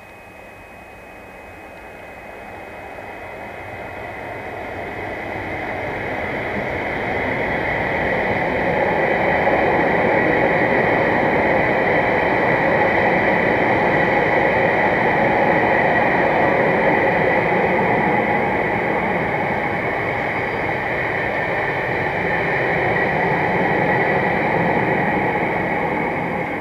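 A British Class 59 diesel freight locomotive approaching and passing, followed by a long rake of stone hopper wagons running over the rails. The sound builds over the first eight seconds or so and stays loud as the wagons roll by, with a steady high whine over the rumble, then starts to fall away near the end as the tail of the train goes past.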